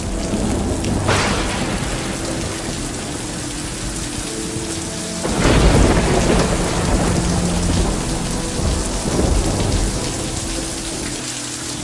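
Heavy rain falling steadily, with thunder rumbling twice: once about a second in and more loudly around five to six seconds in.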